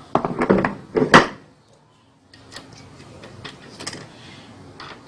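Clattering and sharp clicks of plastic and metal parts and tools being handled as the washing machine's drive mechanism is screwed back together. The clatter is loudest in the first second or so, then turns to quieter scraping with a few clicks.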